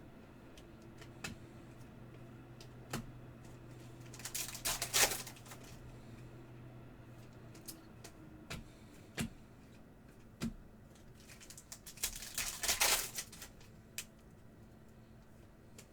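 Trading cards being handled and flipped through by hand: scattered light clicks and snaps of card edges, with two longer rustles of cards sliding against each other, about four seconds in and again near twelve seconds.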